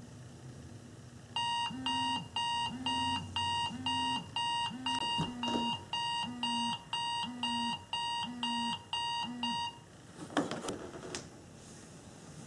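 Smartphone alarm beeping in a steady repeating pattern, about two beeps a second, with a lower buzzing pulse alongside. It starts about a second in and stops after about eight seconds, followed by a few knocks and rustles.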